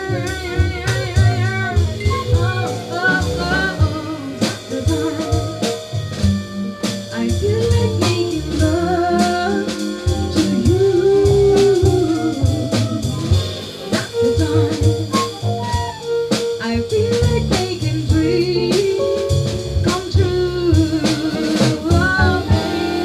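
Live jazz band playing, with a drum kit keeping time and a voice holding notes with vibrato near the start and end.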